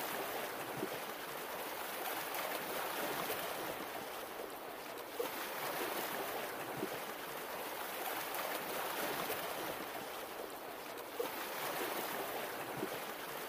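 Sea waves washing on a shore: a steady rush of water that swells and eases, with a brief sharp splash about every six seconds.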